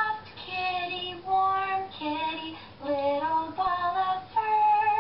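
A young woman singing a short unaccompanied melody of held notes that step up and down in pitch, about seven notes in all, ending on a long held note.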